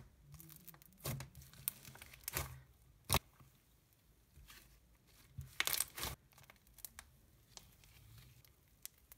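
Thick, creamy off-white slime being pressed, stretched and pulled apart by hand, giving faint scattered sticky crackles and tearing sounds, with a sharp crackle about three seconds in and a cluster of them near six seconds.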